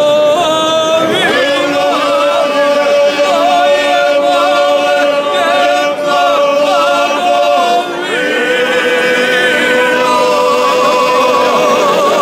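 A group of men singing a traditional Herzegovinian folk song together in long, held notes with a wavering vibrato. The phrase breaks off briefly about eight seconds in, then the next one begins.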